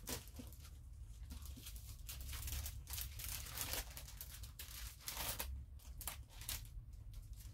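Plastic stencil sheets and papers rustling and crinkling in irregular bursts as they are sorted through by hand.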